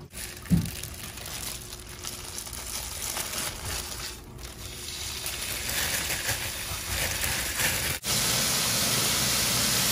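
Raw ground meat dropped from a plastic bag into a hot, oiled wok and starting to sizzle, with the bag crinkling; the frying hiss grows louder and steadier toward the end. A single thump about half a second in.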